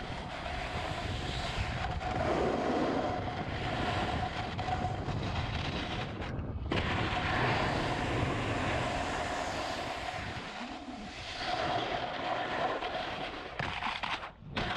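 Wind buffeting the microphone over the hiss and scrape of edges sliding on groomed snow during a run down a ski slope, with a low rumble and a faint steady hum. The sound cuts out briefly twice, about six seconds in and just before the end.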